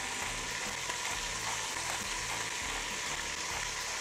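Chicken pieces frying in vegetable oil in a pot, with a steady sizzle as they are stirred.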